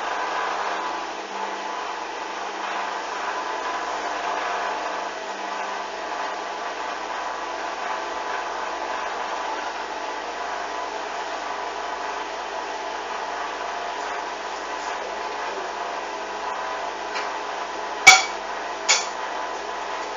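Hoover washing machine running through a spin-and-drain phase: a steady whir with a faint whine. Near the end come two sharp knocks about a second apart, the loudest sounds.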